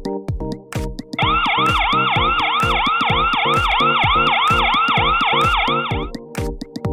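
Alarm siren sounding, a falling wail repeating about three times a second, signalling an intrusion alarm set off by a PIR motion sensor. It starts about a second in and stops about a second before the end, over electronic dance music with a steady beat.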